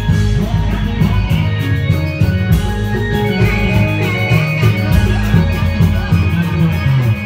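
Loud music with a heavy bass line and a steady beat.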